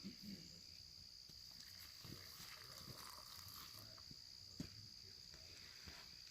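Faint steady high-pitched insect trilling, like crickets, with a few soft clicks and one sharper tap about four and a half seconds in.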